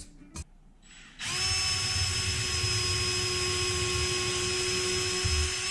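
Power drill running at one steady speed for about four and a half seconds. It starts about a second in and stops near the end.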